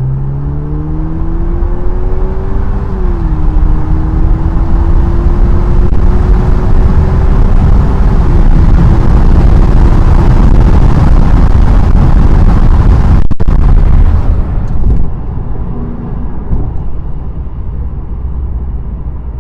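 Lexus IS with its muffler deleted, heard from inside the cabin with the windows partly down, accelerating hard. The engine note climbs, drops at a gear change about three seconds in, and climbs again. It holds at full volume, then eases off to a quieter cruise around fourteen seconds in.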